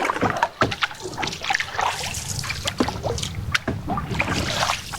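Canoe paddling in calm water: paddle strokes pulling through the water, with trickling drips and scattered small knocks.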